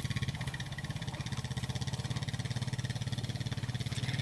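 Vehicle engine idling steadily, a low, even hum with a fast regular pulse.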